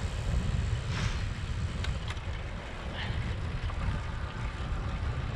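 Wind rushing over a moving camera's microphone, a steady low rumble, with a few faint clicks.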